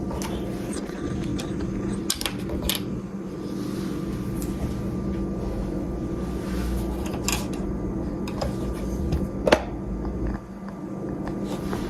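Steady mechanical hum of a kitchen fan or appliance, with a few scattered light clicks and knocks of containers being handled; the sharpest knock comes about three-quarters of the way through.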